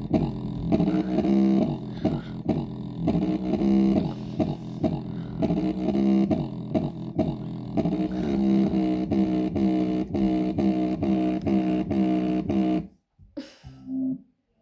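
Music playing through the torn woofer of a fake JBL Charge 4 Bluetooth speaker: a quick run of repeated pitched notes with no real bass, though the cone is moving. The sound cuts out suddenly a little before the end and returns only in short stutters.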